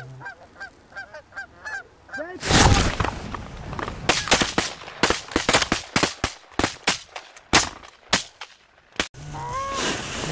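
Geese honking, then about two seconds in a volley of shotgun fire from several guns: more than a dozen shots, some overlapping, over about six seconds. The goose honking picks up again near the end.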